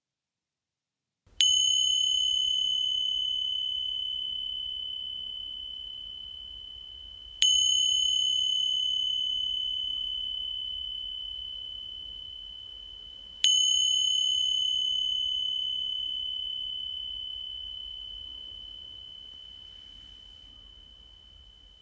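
A small meditation bell struck three times, about six seconds apart, each a clear high ring that fades slowly, the last still dying away near the end; the bell marks the close of the mindfulness practice.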